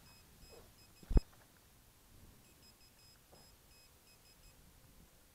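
Faint, high electronic beeping in short, evenly spaced groups, with one sharp knock about a second in.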